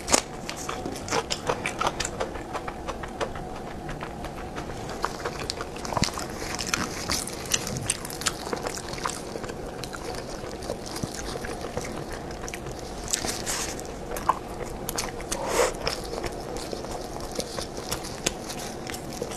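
Close-miked eating sounds: chewing and biting, with many short wet clicks and crunches, over a faint steady hum.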